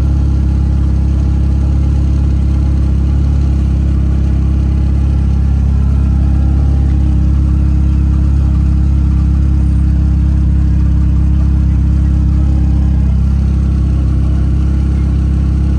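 Honda del Sol's four-cylinder engine idling steadily at about 1000 rpm, heard from inside the cabin.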